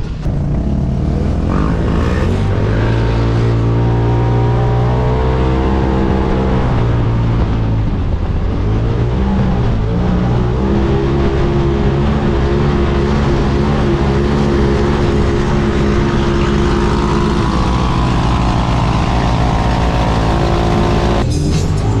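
Side-by-side UTV engine running at high, steady revs, its pitch climbing about two seconds in, dipping briefly near the middle and again near the end, over a rush of wind.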